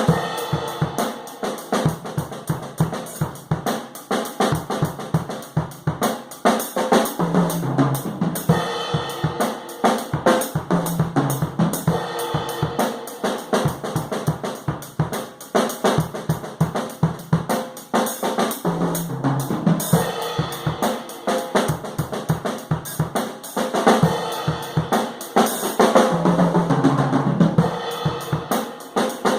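Nagano Garage Fusion 20 acoustic drum kit played in a steady groove of kick, snare, hi-hat and cymbals, with fills running down the toms now and then. It is heard through a room microphone, so the room's own sound is part of it.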